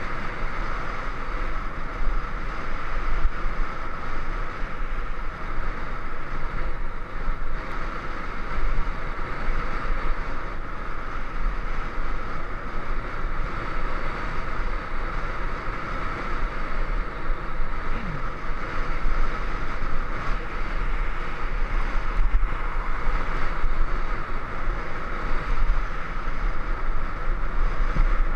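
Steady wind rush over the microphone of a bike-mounted camera, with a low rumble from the tyres rolling on a concrete road.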